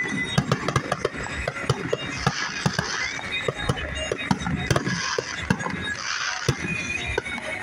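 Fireworks display going off in rapid succession: a dense stream of sharp bangs and pops, several a second, with a spell of hissing crackle every second or two.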